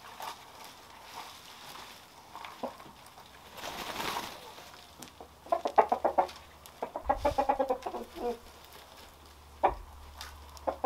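Roosters clucking in quick runs of short repeated calls, two runs around the middle and a single call shortly before the end. A brief burst of noise about four seconds in.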